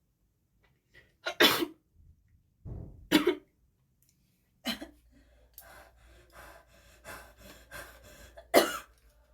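A young woman's chesty cough, which she says is heavy with phlegm: single loud coughs about a second and a half in, at three seconds and just before five seconds, then a run of quieter rapid hacks, and one more loud cough near the end.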